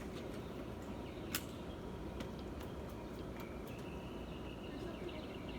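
A small bird singing, with high chirps and trills that begin about halfway through, over quiet outdoor background noise. A single sharp click sounds about a second in.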